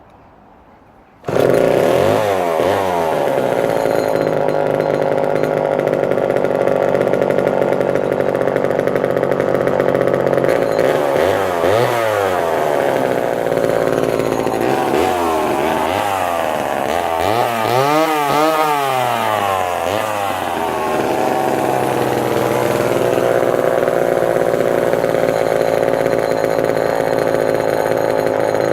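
Homelite Super XL two-stroke chainsaw firing up suddenly about a second in, then running loud through an exhaust with its cover missing. It is revved up and down a few times, around twelve seconds and again from fifteen to twenty seconds in, and settles back to a fast idle, which the owner takes for a carburettor issue or a need for tuning.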